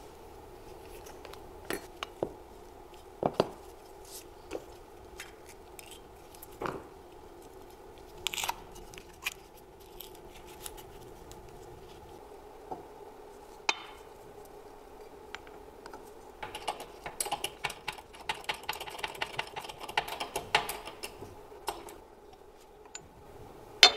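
Alternator parts being handled on a bench: scattered sharp metallic clicks and knocks, then a dense run of clicking, over a steady low hum. Near the end a single loud sharp knock comes as a bearing is pressed into the alternator's end housing.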